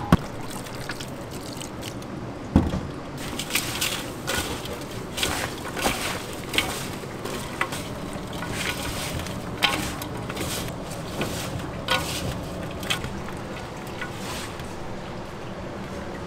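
Julienned radish being tossed and squeezed by a gloved hand with chili flakes in a stainless steel bowl: irregular wet rustling and squishing, with a low steady hum underneath.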